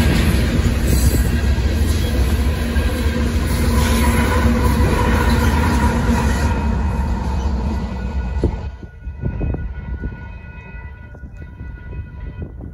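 Freight train rolling past, its rear pair of GE AC44CW distributed-power locomotives running, with a heavy steady rumble that falls away about eight and a half seconds in as the train clears the crossing. After that the level-crossing warning bell is left ringing on its own.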